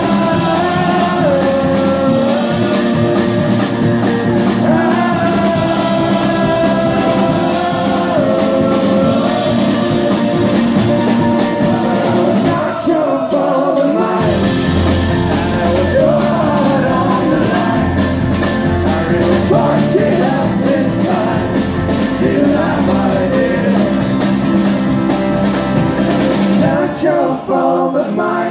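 Live folk-rock band playing loudly, with banjo, strummed acoustic guitars, electric guitar, keyboard and drums under lead and harmony singing. About halfway through the low end drops out briefly and comes back hard, and near the end the instruments fall away, leaving the voices.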